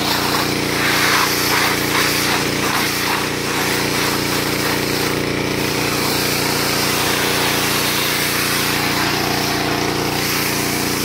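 Gas pressure washer's small engine running steadily, with the hiss of the high-pressure water jet hitting the car and the wet concrete; the spray hiss pulses rapidly for the first few seconds.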